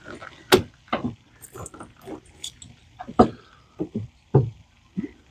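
Irregular sharp knocks and clanks of hand tools on metal, a few loud strikes among smaller clicks, while battery cables are being refastened by hand.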